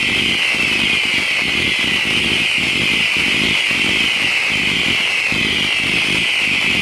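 A 225-shot fireworks cake firing a rapid run of shots with sizzling whistle tails. It makes a loud, continuous chorus of overlapping whistles, each falling in pitch, over a fast, even patter of launch thumps.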